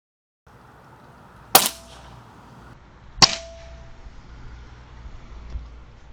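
Two sharp air rifle shots about a second and a half apart, each followed by a short metallic ring. The first shot is the louder.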